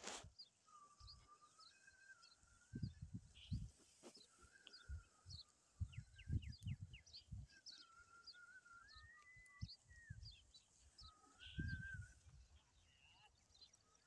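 Small birds calling: many short high chirps and a thin wavering whistled note that rises once in the middle. Irregular low rumbles come through a few times.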